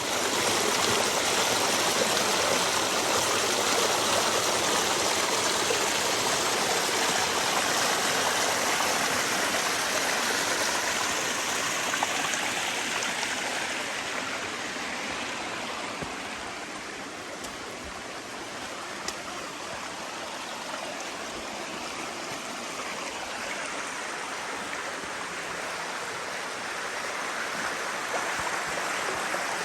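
Steady rush of flowing water from a moorland beck and waterfall, a little louder at first and easing somewhat about halfway through.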